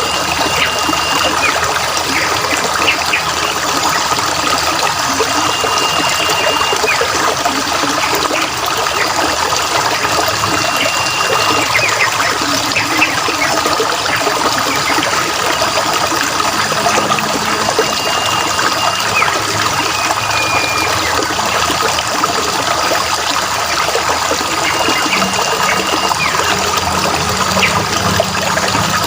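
Steady running, trickling water of a stream, with short whistled bird calls every few seconds.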